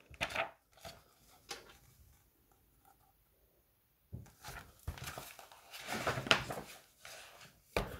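A large hardcover picture book being handled: a few soft taps early on, then pages and cover rustling, with sharper knocks in the second half as the book is turned around.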